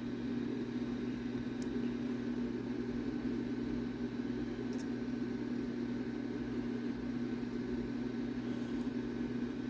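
Steady low hum of a running motor or fan, with three faint light ticks spread through it as the first key pin is worked out of the disassembled padlock.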